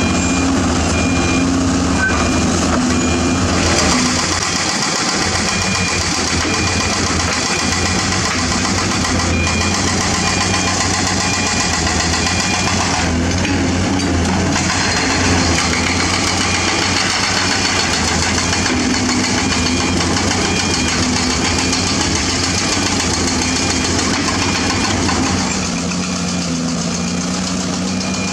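Diesel engines of heavy earthmoving machines running steadily under work. A backup alarm beeps in a steady repeating pattern at several points.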